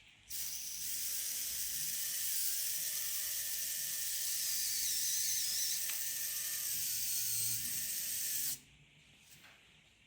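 Small DC electric drive motors and plastic gearing of a toy line-follower car whirring for about eight seconds, then cutting off suddenly. One motor is a replacement that does not run at the same speed as the original.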